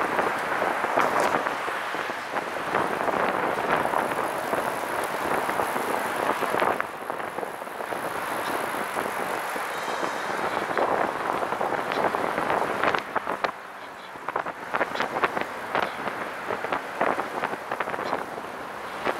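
Road and wind noise while riding a recumbent trike beside passing traffic. A steady rush eases off after about seven seconds, and a string of quick ticks and knocks runs through the second half.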